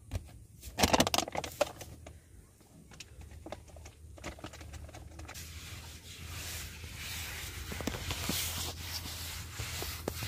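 A few sharp knocks about a second in, then from about halfway a hand rubbing flour across a painted tabletop, a steady rubbing hiss.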